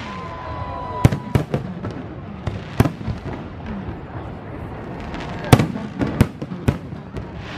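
Aerial fireworks bursting: about seven sharp bangs at uneven intervals, the loudest about five and a half seconds in. A steady whistle sounds through the first second and a half and cuts off.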